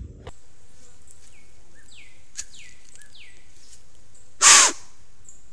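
Outdoor ambience with a steady hiss and a bird's short calls, each falling quickly in pitch, repeated several times. About four and a half seconds in comes one loud, breathy burst of noise lasting about half a second.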